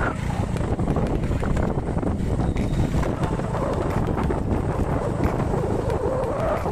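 Wind buffeting the microphone on a moving motorcycle, with the bike's engine running underneath.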